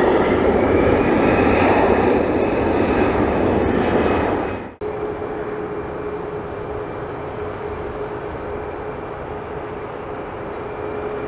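Jet airliner engine noise: for about the first five seconds, loud engine noise with a slowly rising whine, which cuts off suddenly. Then quieter, steady jet engine noise with a single steady whine.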